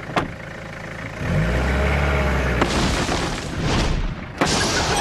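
Toyota Hilux ute engine starting up and revving, the pitch rising a little, then a sudden loud crash near the end.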